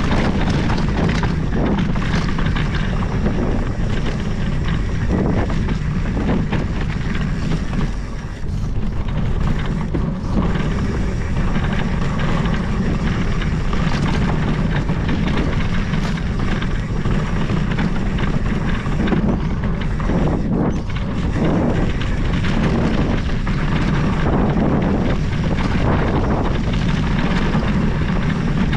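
Mountain bike running fast down a dirt singletrack: wind buffeting the microphone over a steady low rumble of tyres on dirt, with scattered brief knocks and rattles from bumps in the trail.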